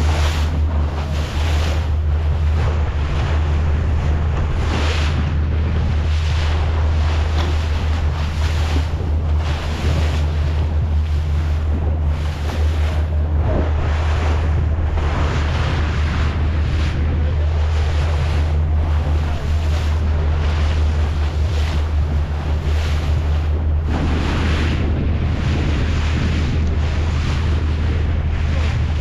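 A boat under way: its engine gives a steady low hum while wind buffets the microphone and water rushes past the hull in repeated surges.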